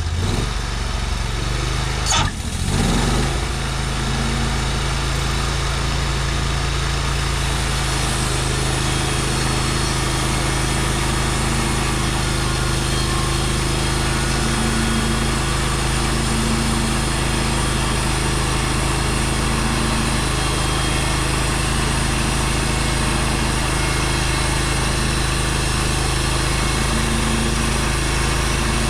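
Portable bandsaw sawmill's gas engine running. About two seconds in there is a short knock and the engine speeds up, then it runs steadily at the higher speed.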